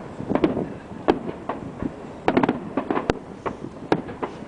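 Aerial fireworks shells bursting in an irregular run of sharp bangs, some coming in quick clusters.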